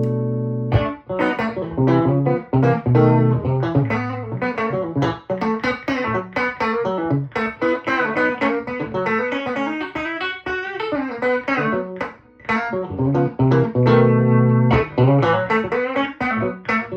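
Electric guitar played through a Victoria 35310 tweed amp, a clone of the Fender 5E7 Bandmaster, with three Jensen P10R speakers. Ringing chords open the passage, then quick single-note lines, then chords again about two-thirds of the way through.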